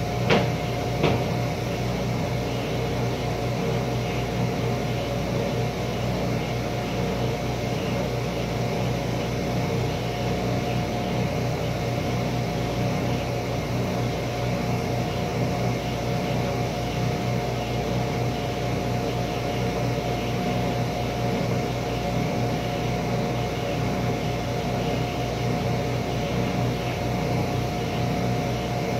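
A workshop machine running steadily, a constant motor hum with a steady whine on top. There are two short knocks in the first second or so.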